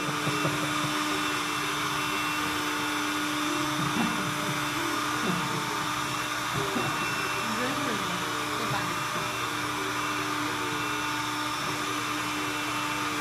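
WS-600 window-cleaning robot's suction fan running steadily, a constant whir with a steady hum, as the robot holds itself to a whiteboard and moves across it.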